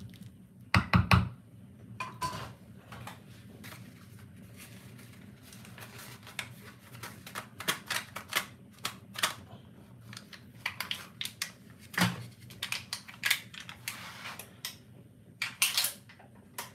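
A wooden spoon knocks a few times against an aluminium cooking pot about a second in, followed by a long run of irregular light clicks and taps of kitchen handling.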